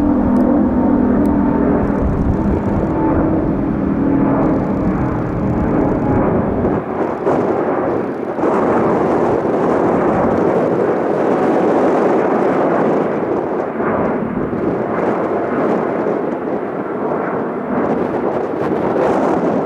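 Airbus A350 twin Rolls-Royce Trent XWB turbofans at climb power on departure, a loud jet roar passing overhead. At first it carries a deep rumble and a few steady humming tones. About seven seconds in the deep rumble fades, leaving a rushing roar with faint crackle.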